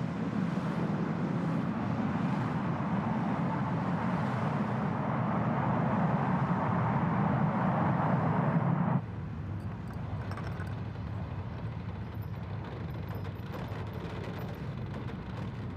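Jet airliner passing low overhead, its engine noise loud and steady and growing slightly louder before cutting off abruptly about nine seconds in. A quieter steady background noise follows.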